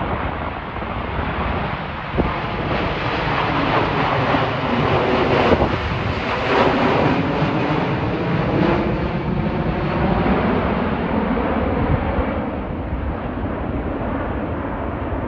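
Jet airliner on final approach passing overhead: its engine noise swells to a peak about halfway through, the whine sliding down in pitch as it goes by, then fades. Wind buffets the microphone throughout.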